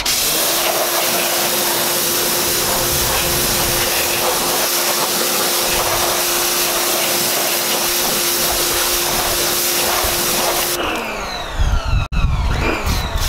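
An 1800 PSI pressure washer spraying water onto a car's alloy wheel: a loud, steady hiss of spray over the machine's steady motor hum, cutting off suddenly near the end. A few short thumps follow.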